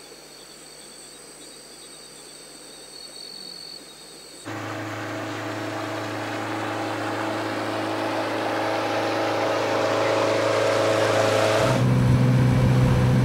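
Faint insect buzz for the first few seconds. Then a river boat's motor starts abruptly, a steady drone that grows louder. About twelve seconds in it turns to a louder, lower engine drone, as heard on board the boat.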